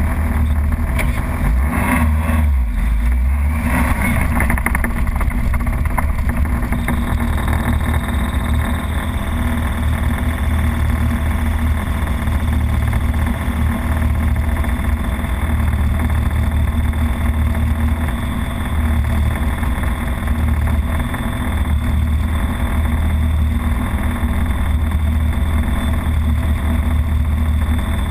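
Formula Vauxhall Junior racing car's four-cylinder engine idling unevenly at a standstill, heard close up. A short burst of louder noise comes about two to four seconds in.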